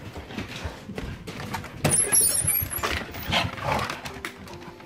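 Small dogs scrambling to and through the back door, their claws clattering on the wooden floor, with a loud rattle and a brief high squeak about two seconds in as the door goes.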